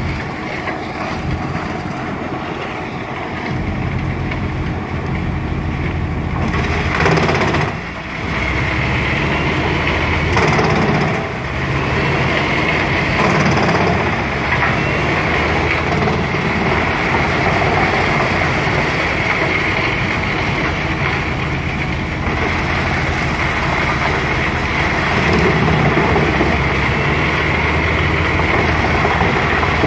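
Truck-mounted Pezzolato drum wood chipper running under load, chewing through logs fed in by a crane grapple: a steady machine drone with crunching and splintering wood. There are louder crunches about seven and ten seconds in.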